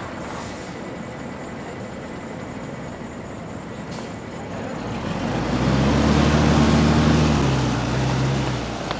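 A city bus pulling away from a stop over steady street traffic noise. Its engine swells in about five seconds in and is loudest for a couple of seconds. The engine note then drops and fades as the bus drives off.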